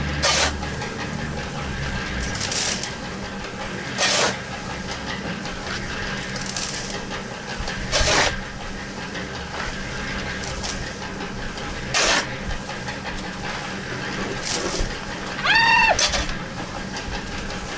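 Steel shovel scooping sand from a pile, a short scrape about every two seconds with the stronger scrapes about every four seconds. Near the end a short animal call rises and falls in pitch.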